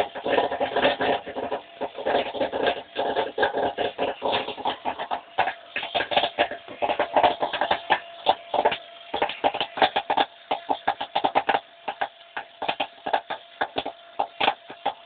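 Kernels popping in a popcorn machine's kettle: a dense run of sharp pops that thins out to scattered single pops near the end as the batch finishes, with a faint steady hum underneath.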